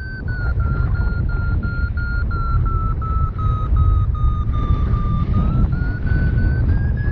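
Wind rushing over the GoPro microphone in flight, with a paragliding variometer's beeping climb tone over it. The tone's pitch sinks a little about midway and rises again near the end, signalling the glider is climbing in lift.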